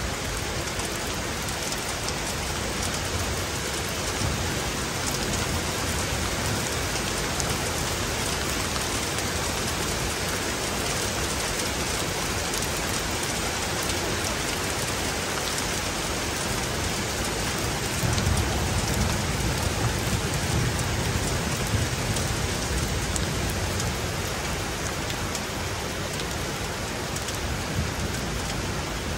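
Steady heavy rain falling and splashing on surfaces. A low rumble of thunder swells about two-thirds of the way in, lasts a few seconds and fades back under the rain.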